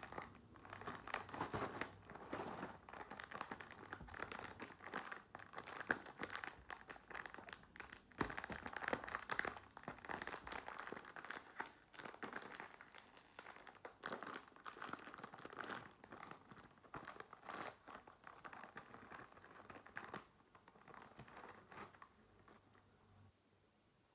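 Plastic snack wrapper crinkling as it is handled and opened: dense, crackly rustling that thins out and stops near the end.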